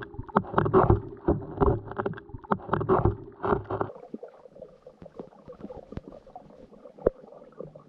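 Muffled underwater sound through a GoPro's waterproof housing: water churning and knocking against the camera for about four seconds as it goes under, then a much quieter underwater hush with scattered sharp clicks.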